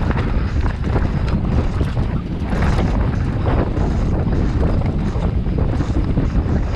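Mountain bike descending a dirt trail: wind buffeting the GoPro's microphone over a steady rumble of tyres on the ground, with frequent knocks and rattles from the bike over rough terrain.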